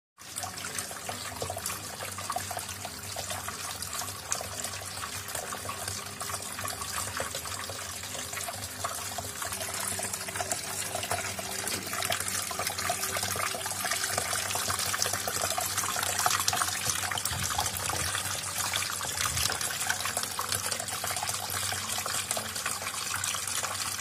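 Small tabletop water fountain running: water trickling and splashing steadily down a styrofoam cascade tower into its basin, with a low steady hum underneath.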